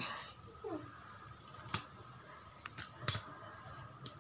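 About six sharp, brief clicks or snaps at irregular intervals over a low background hum.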